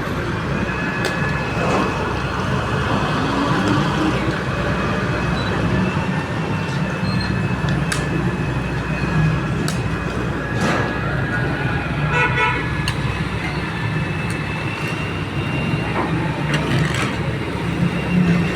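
An engine running steadily under street traffic noise, with vehicle horns tooting now and then, one short burst about twelve seconds in.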